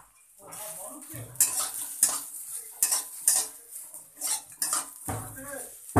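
Flat metal spatula scraping and clinking against a steel kadai as fried soya chunks are stirred and turned, in uneven strokes over a light sizzle.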